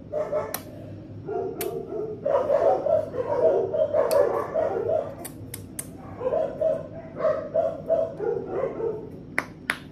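Two young puppies making short, repeated cries in irregular runs, with a few sharp clicks among them.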